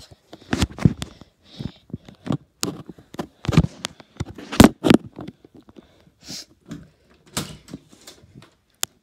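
A run of irregular knocks and thumps, several a second, the loudest about three and a half and four and a half seconds in, with a short hiss about six seconds in.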